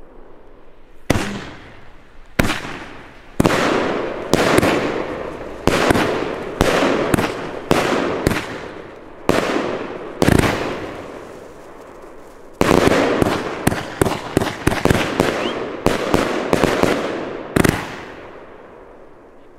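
Funke Nishiki Kamuro 44-shot firework battery firing shot after shot: sharp bangs, each followed by a fading hiss of the breaking stars. The shots come about one a second at first, pause briefly about eleven seconds in, then come in a quick run before tapering off near the end.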